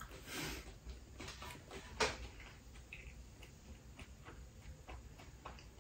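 Faint chewing and mouth sounds of someone eating spinach pizza, with scattered small clicks and one sharper click about two seconds in.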